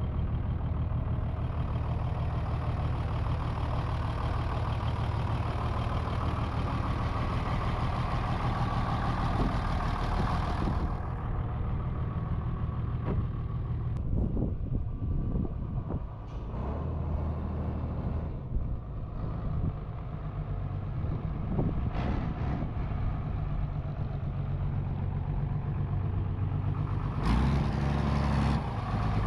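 Truck engine idling steadily, its sound thinning out about eleven seconds in and briefly getting louder near the end.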